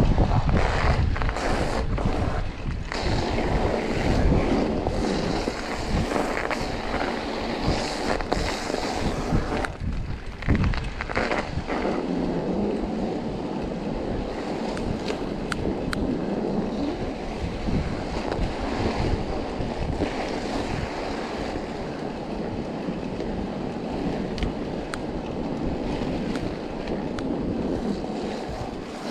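Mountain bike riding through snow: a steady rush of wind buffeting the microphone over the tyres crunching through snow, with scattered knocks and a rougher rumble in roughly the first twelve seconds, then smoother and steadier.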